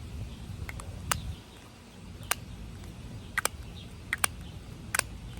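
Plastic lip gloss tubes and caps being handled, giving several small, sharp clicks and taps, some in quick pairs, over a low steady rumble.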